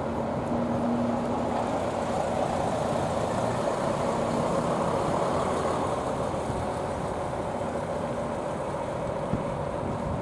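Diesel city bus engine running as the bus pulls away and drives off, a steady drone that eases a little in the second half.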